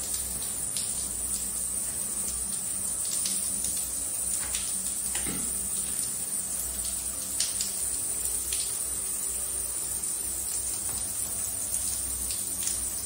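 Water splashing and dripping on a wet shower floor, with scattered faint ticks over a steady low hum.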